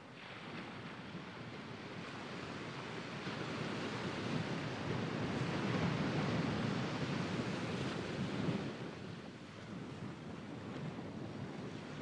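Small sea waves breaking and washing up a sandy shore: a steady surf that builds to its loudest about halfway through, then eases off.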